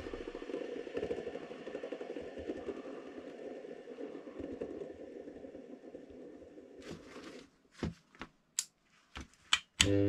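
Brushless washing machine motor spinning down after the power is cut, its whir fading away over about seven seconds. Then a handful of sharp clicks.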